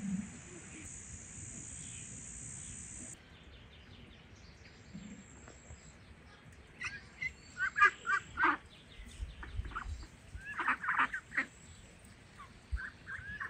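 Poultry calling in the yard: groups of short, sharp calls starting about halfway through, loudest in two bunches.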